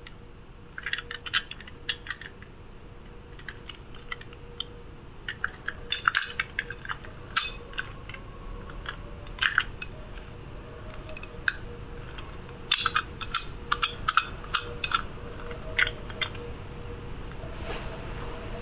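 Small plastic toy cement mixer truck being turned over in the hands, giving irregular light clicks and taps of hard plastic, over a faint steady hum.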